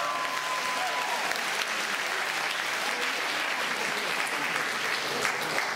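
Audience applauding. A last held sung note fades out about a second in.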